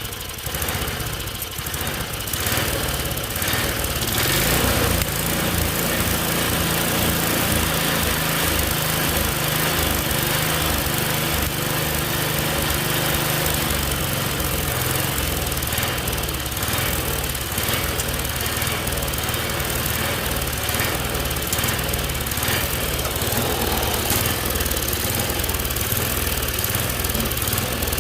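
Tecumseh small engine on a snowblower, its carburettor just cleaned, running. It picks up speed over the first few seconds, then holds a steady speed.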